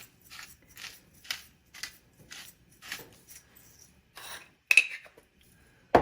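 Pepper mill being twisted over a bowl of carrots, a short grinding stroke about twice a second, then a sharp clink near the end and a knock as it is set down.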